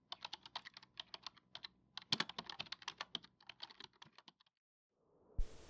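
A rapid run of light clicks, about eight a second, in three groups, stopping about four and a half seconds in. Near the end a single thump and a steady hiss begin.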